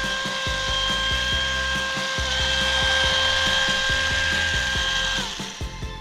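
Remote-control toy centipede's small electric motor and gearbox whining steadily as it crawls, over rapid plastic clicking from its gears and segmented legs. The whine cuts off about five seconds in.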